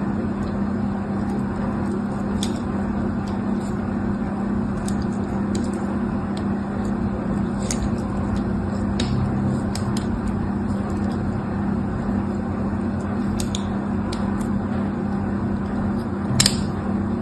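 Steady low hum and hiss of a heavily amplified close-up recording, with sparse short ticks of a pointed craft knife blade cutting and scraping into a bar of soap, the sharpest one near the end.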